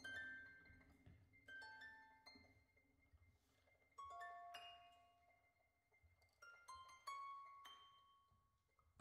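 Two concert harps playing faint, sparse plucked notes and small clusters of notes, each group starting sharply and ringing away to near silence before the next.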